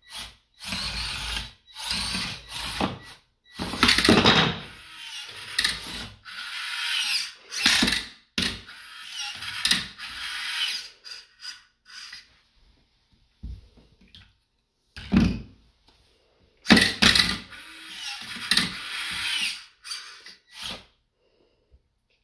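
The small electric drive motors and gearboxes of a 1 lb antweight combat robot whirring in short stop-start bursts as it drives and turns, with quiet gaps between runs.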